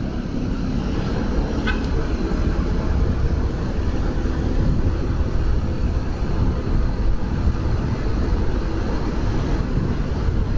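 Motorcycle riding noise at low city speed: the engine running steadily under wind buffeting the microphone, with the rumble of surrounding traffic.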